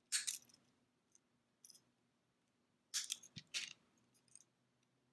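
Small metal clicks and clinks of jewelry pliers gripping and working a metal jump ring to fit a lobster claw clasp: a short cluster at the start, a faint click later, and two more clusters about three seconds in.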